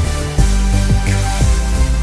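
Background music with a steady beat, about two beats a second, over sustained low notes.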